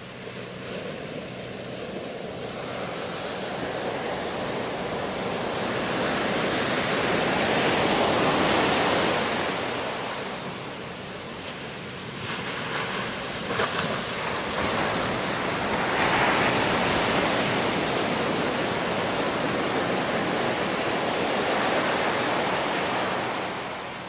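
Pacific Ocean surf: waves breaking and washing up the sand. It swells to a peak about eight seconds in, eases, builds again from about sixteen seconds, and falls away near the end.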